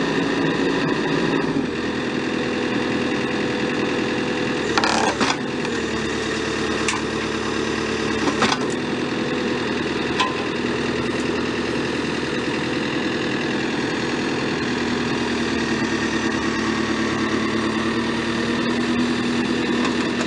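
JCB 3CX backhoe loader's diesel engine running steadily, its note shifting slightly now and then, with a few sharp knocks, the loudest about five and eight and a half seconds in.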